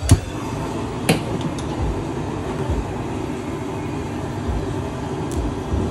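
Steady low rumbling noise with soft pulses about once a second, and two sharp clicks in the first second or so.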